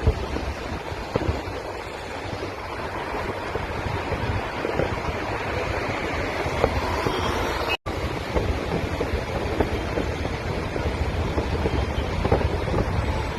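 Distant fireworks display heard as a steady dense noise with a few sharp bangs, mixed with wind on the microphone and road traffic. The sound drops out briefly about eight seconds in.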